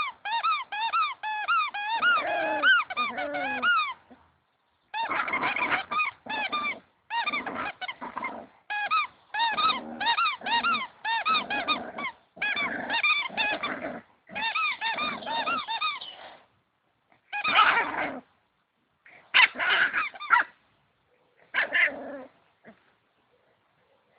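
Yellow spiky rubber squeaky dog toy squeaking over and over as a puppy chews it. It starts with a fast run of squeaks, about four or five a second, then comes in bursts with short pauses, and thins to a few separate squeaks near the end.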